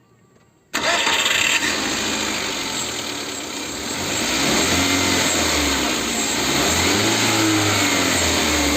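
Wuling Hongguang 1.5-litre engine running and being revved up and down, with the revs rising and falling in the second half. The ticking noise from the intake manifold's internal valve under acceleration is gone, now that the whole intake manifold assembly has been replaced.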